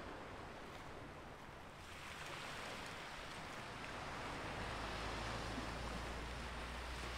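Sea waves washing on a shore, a steady rush that swells about two seconds in, with a low steady rumble joining about halfway through.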